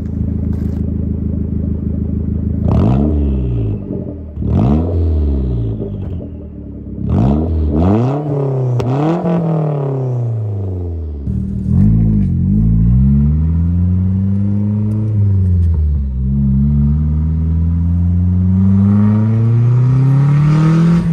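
Mazdaspeed MX-5 Miata's turbocharged 1.8-litre four-cylinder revving: about five quick throttle blips in the first ten seconds, then a long pull under acceleration, the pitch climbing, dropping at each upshift and climbing again.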